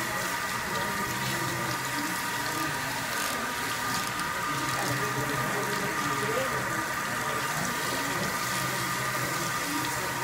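Water running steadily from a salon backwash sink's hand sprayer as bleach is rinsed out of the hair.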